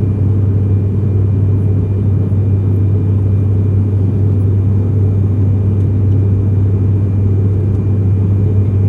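Steady, loud low rumble of an airliner cabin in flight: engine and airflow noise, unchanging throughout.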